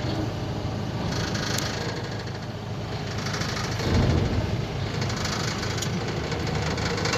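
Heavy diesel engine idling steadily, with a brief louder low rumble about four seconds in.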